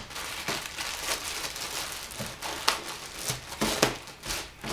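Clear plastic poly bag crinkling as a folded garment inside it is handled and unwrapped, in short irregular rustles with a few sharper ones.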